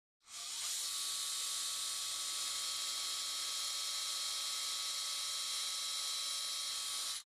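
Cordless surgical power drill running at a steady speed, a high whine over hiss, as it drills into and drives a screw into a synthetic bone model. It starts about a quarter second in and cuts off sharply near the end.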